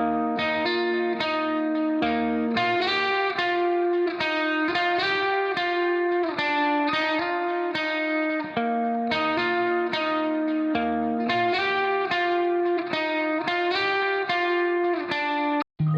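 Background music: a steady run of short pitched notes in an even rhythm, dropping out for an instant just before the end.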